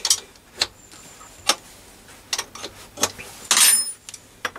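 Sharp metallic clicks and clinks of a tool on the locking nut above the jacking screw under a Myford ML7 lathe bed, with a longer scraping clatter about three and a half seconds in. The nut is being loosened so the jacking screw can be turned to take the twist out of the bed.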